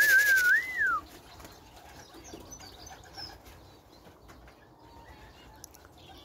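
A pigeon fancier's call to bring his pigeons in: quick, even shakes of a feed tin rattling, with a warbling whistle over them that ends about a second in on a rising-then-falling note. After that it is quiet but for faint bird chirps.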